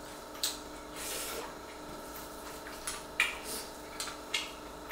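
Eating by hand: short wet smacks of chewing and of fingers squishing rice against plates, about half a dozen, the loudest about three seconds in, over a faint steady hum.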